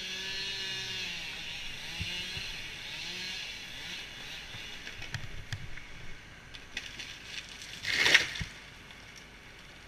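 Chainsaw running at a distance, its pitch rising and falling as it cuts during a tree takedown. About eight seconds in, a short, loud rush of noise with a knock just after it.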